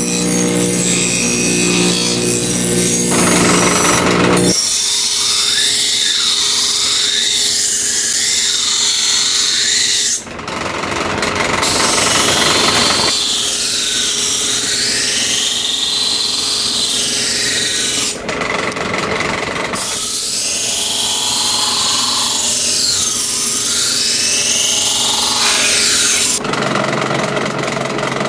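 Electric grinders running and grinding a high-carbon steel railroad spike: a steady motor hum under a loud grinding hiss that sweeps up and down in pitch as the wheel bites the steel. The sound changes abruptly several times between stretches.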